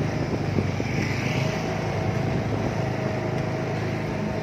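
Small motorbike engine running steadily at low speed, with a constant low hum.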